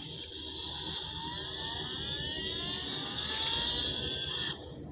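A toy Bugatti die-cast car's built-in sound module playing a recorded engine revving effect through its small speaker, rising in pitch and cutting off suddenly near the end.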